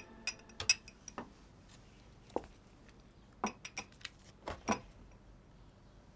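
Irregular light clinks and knocks of crockery and utensils being handled while tea is made, about ten short strikes, some in quick pairs.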